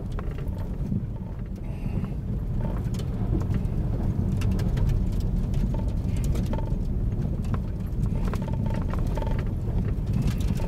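Car cabin noise while driving slowly on an icy, snowy road: a steady low rumble of engine and tyres, with scattered short clicks.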